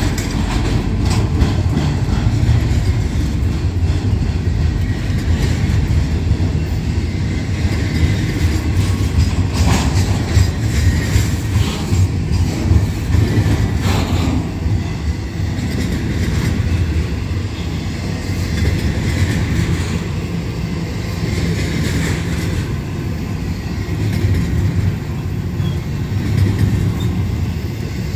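Double-stack intermodal container train rolling past close by: a steady heavy rumble of steel wheels on rail, with a few sharp clacks as wheels pass over the rail joints.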